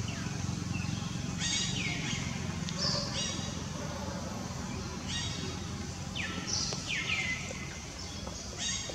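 Short, high-pitched animal calls repeated every second or two, each a quick downward sweep, over a steady low hum.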